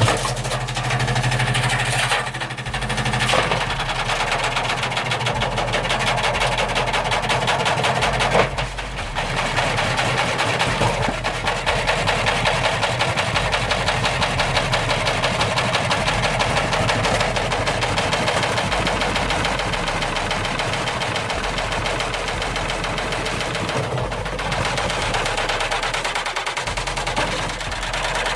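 Washing machine running its drum at speed with its concrete counterweight removed, the motor humming under a dense, fast rattling clatter from the unbalanced machine, with a brief drop about eight and a half seconds in.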